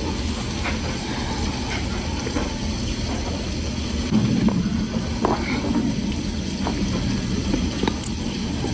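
Close-up eating sounds: a metal spoon scraping and digging through a clear plastic tub of powdery white food, with scattered short clicks and crackles and a louder stretch about halfway through, over a steady low rumble.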